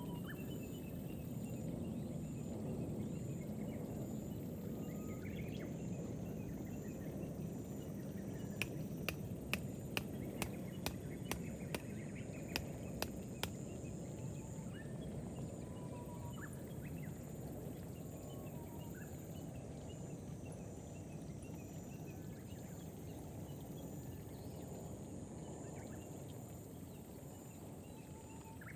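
Gentle rain falling over rice paddies, a steady hiss, with small birds chirping now and then. About a third of the way in comes a run of about a dozen sharp clicks, roughly two a second.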